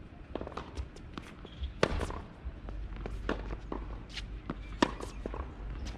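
Tennis balls struck by rackets and bouncing on a hard court during a rally: a string of sharp pops, the loudest about two seconds in and again near five seconds, with players' footsteps on the court.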